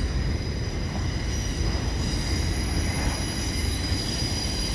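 Freight train cars rolling past, a low steady rumble with a thin high-pitched wheel squeal held over it, typical of steel wheel flanges grinding on the rail in a sharp curve.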